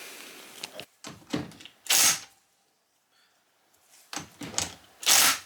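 Tools and engine parts handled on a workbench: a few light clicks and two louder knocks or clatters, about two seconds in and again about five seconds in.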